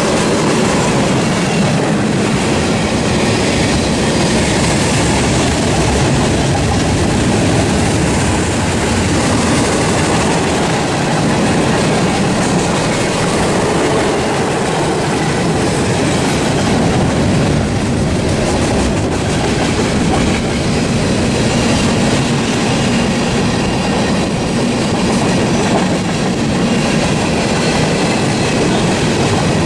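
Norfolk Southern freight train rolling past close by: a steady, loud rumble and clatter of railcar wheels on the track that runs on without a break.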